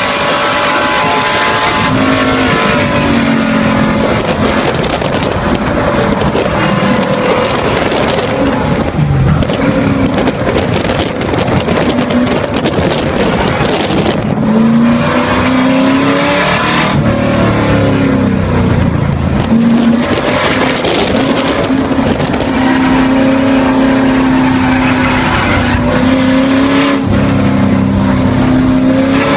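Race car's V8 engine heard from inside the cockpit: full throttle at high speed, then the engine note falls as the car brakes hard for a corner. The revs rise again as the throttle comes on through the turns, and the engine holds a steady pitch near the end.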